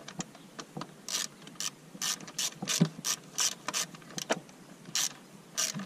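Hand socket ratchet clicking in short, irregular strokes, about two or three clicks a second, as the hold-down bolts of a new ignition coil pack on a Dodge Neon's 2.0 L engine are run in.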